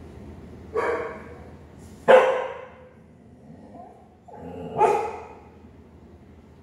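A dog barking three times, the third after a longer gap.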